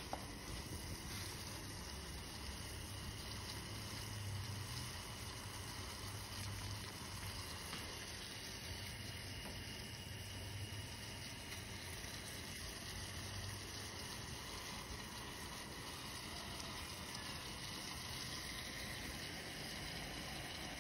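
Gas stove burner running under a stainless steel pan of water: a steady low rumble with a hiss over it.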